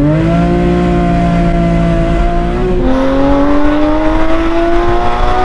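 Porsche Cayman GT4's 3.8-litre flat-six under hard acceleration through a full IPE exhaust, loud, its pitch climbing steadily. About three seconds in the pitch drops at an upshift, then climbs again.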